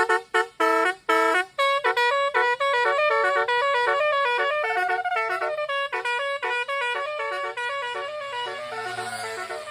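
A 12-note basuri (telolet) musical car horn playing a tune. It opens with short, quick separate notes, then moves into longer notes that run into one another.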